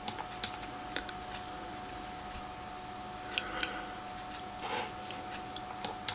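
Computer mouse clicking a few times, sharp isolated clicks spread across the moment, over a faint steady whine and room hiss.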